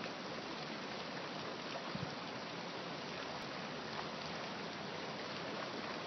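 Water from a small waterfall and stream rushing steadily, with a couple of faint taps about two seconds in.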